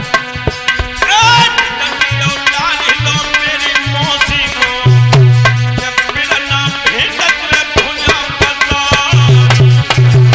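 Instrumental Indian devotional music: tabla-style hand drums keep a rhythm under a melody line that glides between notes, with a low bass note that drops in and out.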